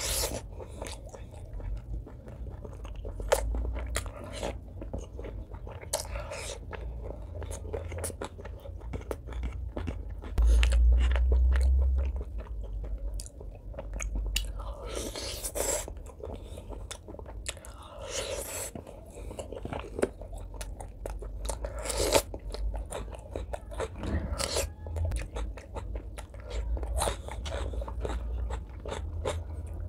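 Close-miked eating sounds: biting into and chewing curried pork leg meat and skin by hand, with many wet smacking and clicking mouth noises. About a third of the way in, a loud low rumble lasts a second or two.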